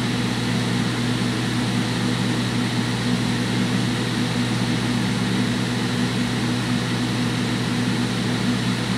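Cooling fans of a six-tube 3-500Z linear amplifier running steadily, a constant whoosh of air with a steady low hum underneath.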